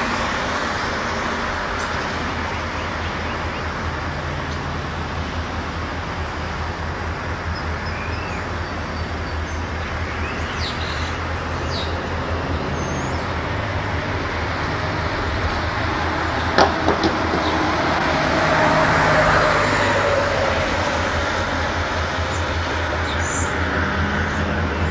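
Steady road traffic noise over a low hum, swelling briefly as a vehicle passes, with a few faint bird chirps. There is a single sharp click about two-thirds of the way through.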